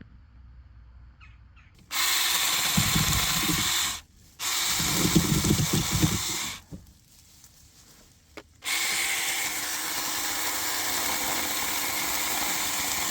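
A handheld power tool running in three bursts: it starts about two seconds in, stops briefly around four seconds, runs again with heavier low rumbling until nearly seven seconds, then starts again and runs steadily to the end.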